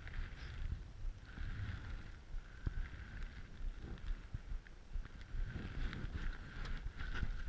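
Wind rumbling on the microphone, with scattered light clicks and knocks of handling.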